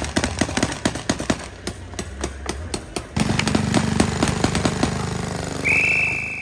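Paintball markers firing in rapid strings of sharp pops, several shots a second. About three seconds in, a low steady hum joins, and near the end a single high steady tone sounds for about a second.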